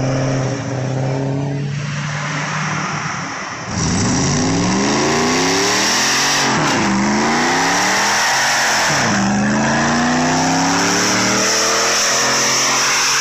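A car doing a burnout: the engine runs steadily, then about four seconds in jumps to high revs under the hiss and squeal of spinning tyres. The revs climb, dip sharply twice and climb again.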